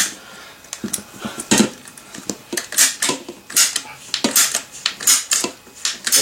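Lengths of PVC pipe knocking and scraping against each other and the work surface: a run of sharp, irregular hollow plastic clatters.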